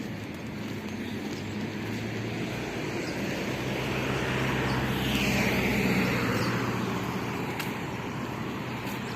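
A road vehicle passing by, its engine and tyre noise getting louder to a peak about five to six seconds in, then fading with a falling pitch.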